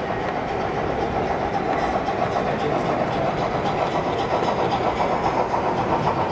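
Gauge 1 model steam locomotive and its freight wagons rolling past on the track, wheels clicking over the rail joints, growing louder from about halfway through as the train draws near. Under it runs the steady background noise of a crowded hall.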